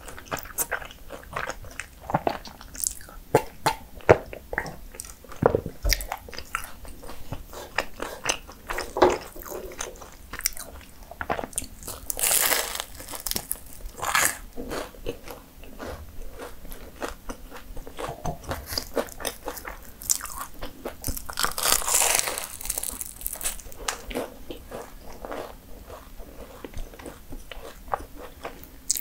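Bites into flaky mini puff pastries, the crisp layers crackling and crunching, with chewing between bites. There are louder, longer spells of crackling a little before the middle and again about three quarters through.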